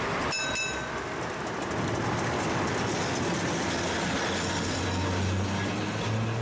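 Vintage electric tram rolling past close by on street track, its wheels rumbling and clicking over the rails, with a brief high ringing tone just after the start.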